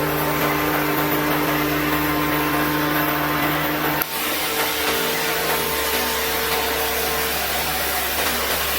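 Oxy-fuel cutting torch of a CNC gantry flame cutter hissing steadily as it cuts through 20 mm steel plate, over a steady machine hum, with a brief dip about four seconds in.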